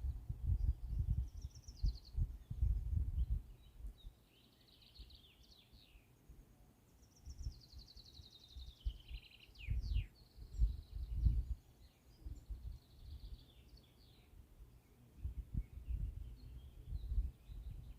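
Songbirds singing in trilling phrases, one of them falling in pitch in the middle, over irregular low thuds and rumbles that come and go and are the loudest sound.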